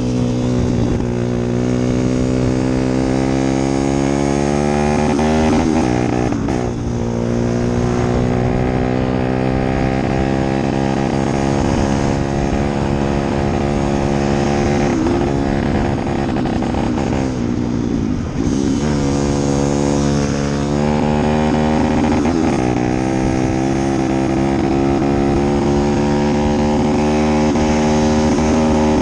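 A vehicle engine running under load, its pitch climbing slowly, then dropping sharply twice, about six seconds in and again around eighteen seconds, as if shifting gears while accelerating.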